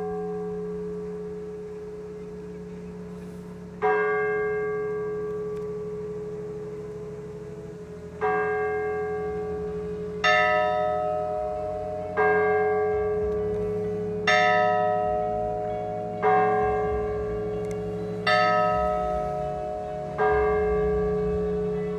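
Church bells ringing in slow, separate strikes, each ringing on for a long time. The first strikes come about four seconds apart; from about eight seconds in they come about every two seconds, with two bells of different pitch taking turns. A low steady hum sits underneath.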